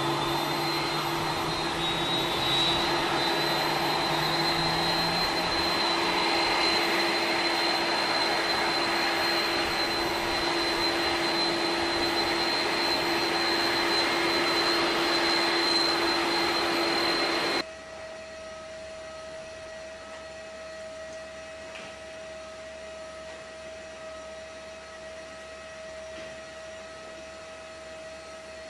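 Steady whine of a jet turbine on a flight line: a rushing noise with a high tone on top. About two-thirds of the way through it gives way abruptly to a much quieter steady hum.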